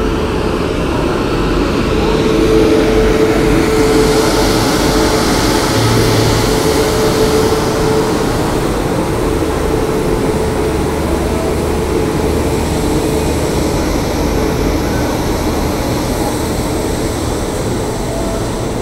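Steady drone of a standing electric locomotive, its blowers running, with a constant hum tone under it; a hiss swells for a few seconds about four seconds in.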